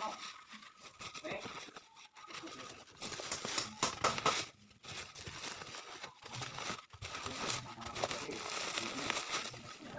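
Plastic packaging crinkling as it is handled by hand, in fits and starts with a few brief pauses.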